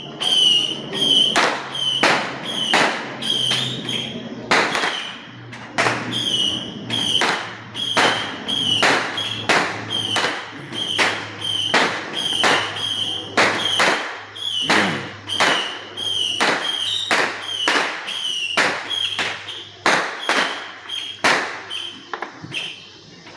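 Firecrackers going off in a long series of sharp bangs, about one and a half a second, stopping shortly before the end, over a steady low hum.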